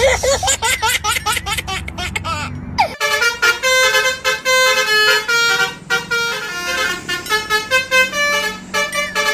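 Telolet multi-tone bus horn playing a quick melody of short repeated notes, over a bus engine's low rumble for the first three seconds. After a sudden break about three seconds in, the horn tune carries on.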